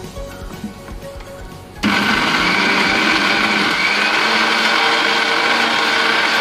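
Electric mixer grinder with a stainless steel jar starting suddenly about two seconds in and then running steadily, grinding. Light background music plays before it starts.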